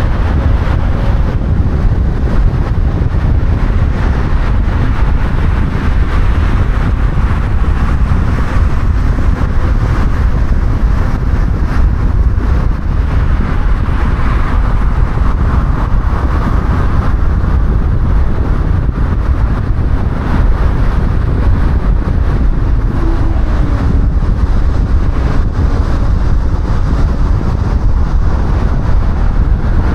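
A car driving, heard as a steady low rumble of road and wind noise.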